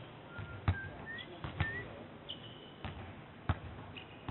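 A basketball bouncing on an indoor court, a few irregular knocks, with sneakers squeaking in short high chirps on the floor.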